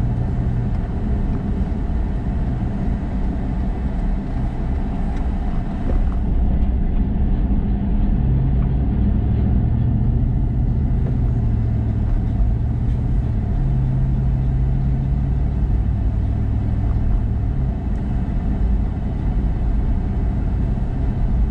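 A car driving, with steady engine and road rumble; the low engine note shifts in pitch a few times.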